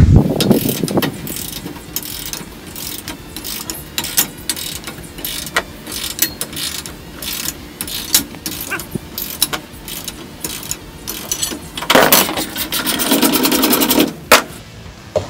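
Socket wrench ratcheting in irregular runs of clicks, with metal-on-metal clinks, as a rusted, stubborn bolt is worked loose. Near the end there are about two seconds of harsher, louder rasping.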